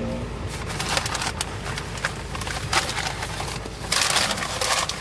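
Paper takeout bag and foil wrapping rustling and crinkling as food is unpacked by hand, with many sharp crackles and a louder, denser stretch of crinkling near the end.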